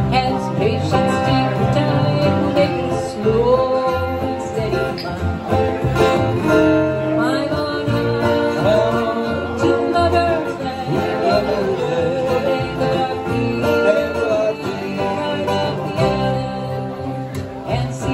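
Live acoustic country-folk trio: two acoustic guitars strumming and picking over a plucked upright bass, with a woman singing the melody.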